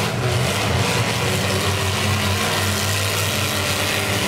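Engines of several demolition-derby cars running at once in the arena: a steady low drone over a wash of noise.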